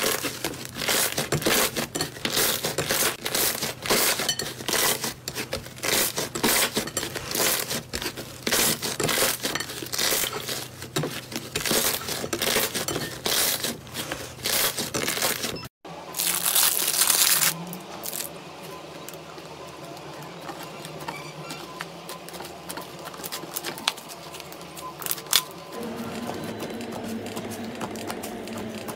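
Slime being squeezed and kneaded by hand, giving dense, rapid crackling and popping clicks. A little past halfway the crackling stops abruptly, followed by a short hiss and a quieter, steadier stretch.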